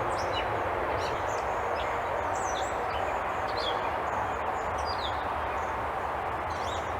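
Several small birds chirping and whistling in short, scattered calls over a steady rushing background noise.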